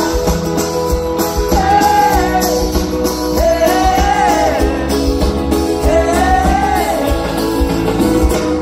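Live rock band playing with the lead singer in three long, sliding vocal phrases over steady held chords, heard through the concert PA from within the crowd.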